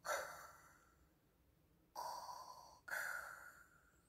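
Darth Vader's mechanical respirator breathing: a filtered breath trailing off at the start, then another full breath in and out about two seconds in.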